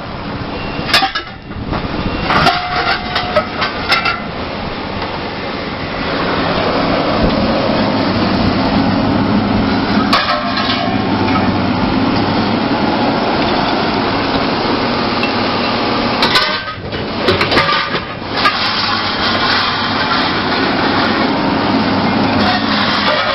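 Scrap metal clanking and crashing as a crane's lifting electromagnet works a scrap pile, over the steady run of the machine's engine. Sharp metal impacts come about a second in, again near two and a half and four seconds, around ten seconds and in a cluster past the middle.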